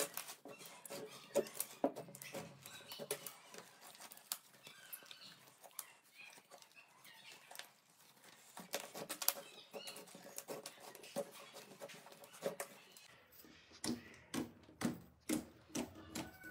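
Soft butter-type slime being kneaded, stretched and pressed by hand, giving irregular small sticky clicks, pops and squelches as air pockets burst. The pops get louder near the end.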